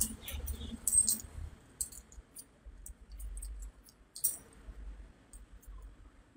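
Faint, scattered short clicks and light taps over a low rumble, with no speech.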